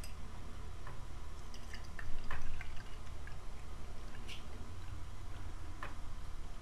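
Tea poured in a thin stream from a glass French press into a glass mug, splashing and dripping, with scattered sharp drips and a louder stretch about two seconds in.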